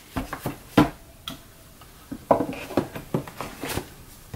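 A black Movado watch box being handled: a series of sharp taps and knocks with some rustling, the strongest knock about a second in and a busier run of clicks in the second half.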